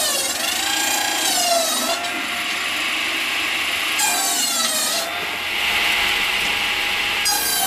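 Circular saw bench cutting through logs: the spinning blade's high whine sags in pitch and recovers as it bites through each log, three times (at the start, about four seconds in, and near the end), with a steady hiss of the running blade in between.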